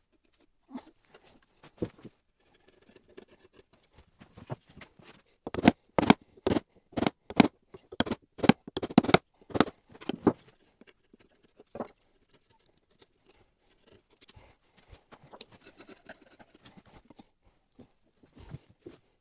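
Hand-tool work on wood: a run of short, sharp strokes about two a second for some five seconds, with quieter scraping and handling sounds before and after.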